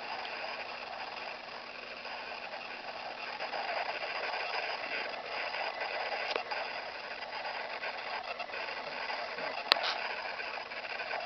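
A man snoring in his sleep, the rough breathing noise swelling and fading. A single sharp click a little under ten seconds in.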